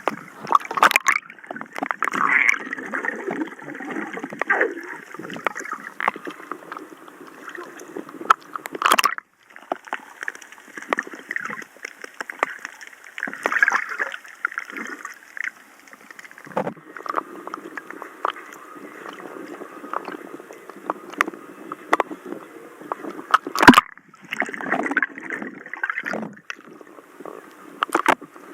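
Water sloshing and gurgling in irregular surges close to the microphone, with scattered small clicks and splashes.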